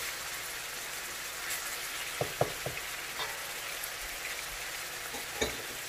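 Garlic, tomatoes and scallions sautéing in hot canola oil in a pan: a steady sizzle. A few light knocks of a cooking utensil against the pan come about two seconds in and again near the end, as the vegetables are stirred.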